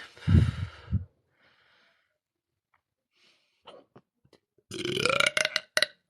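A woman belching loudly: one deep, rough burp about a second long at the start. Near the end comes a second, shorter vocal sound that rises in pitch.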